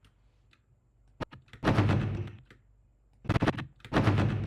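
Martial-arts film sound effects of swishing arms and sleeves with heavy punch-like impacts: three loud hits about 1.6, 3.3 and 4 seconds in, each with a deep thump and a sharp swish, after a small click just before the first.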